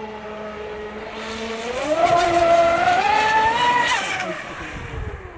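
Electric RC speedboat on a 12S battery pack running flat out across the water: a high motor whine that climbs in pitch about two seconds in, peaks near four seconds, then drops and fades as the boat runs away.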